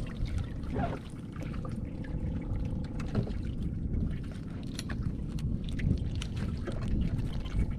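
Water dripping off a wet crab net, with small scattered clicks as hands work blue crabs free of the mesh, over a steady low rumble of wind and water around the boat.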